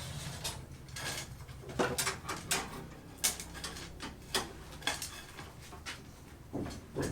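Irregular sharp clinks and knocks, about one or two a second, as of hard objects striking, over a low hum that fades about two seconds in.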